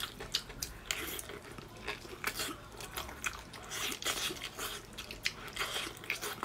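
Close-up eating sounds from a braised trotter being torn apart by hand and gnawed: wet, sticky smacks and clicks coming irregularly several times a second.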